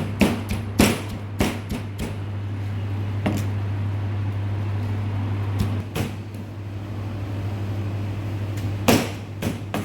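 Irregular knocks and clatter of kitchen prep work, several in quick succession in the first two seconds and then a few scattered ones, over a steady low hum.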